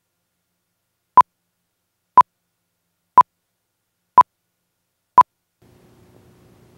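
Countdown-leader beeps: five short, identical tone beeps, one a second, one for each number of the countdown. A faint low hum follows near the end.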